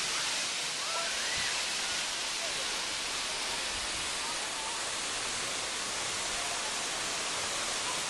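Steady, even rush of a tall waterfall, its water cascading in many thin streams down a steep rock face.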